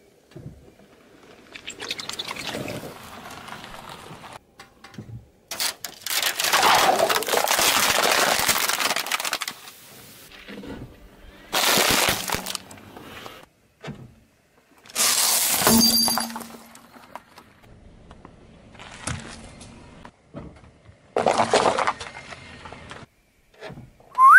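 A car tyre rolling over and crushing small objects one after another. There are about half a dozen separate bursts of crunching and crackling, including a plastic-wrapped packet of baked snacks being flattened, with short quiet gaps between them.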